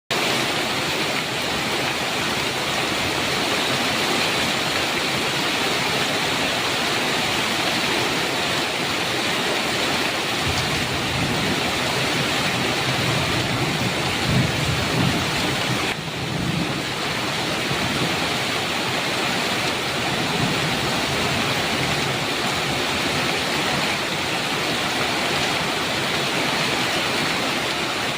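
Heavy rain falling steadily, with a low rumble of thunder swelling from about ten seconds in and fading by about seventeen seconds.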